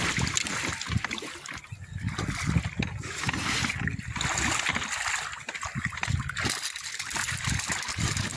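Water splashing and sloshing beside an inflatable boat as a hooked snoek thrashes at the surface, in irregular surges.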